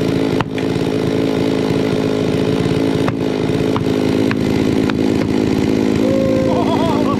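Chainsaw engine running steadily, with a few sharp clicks.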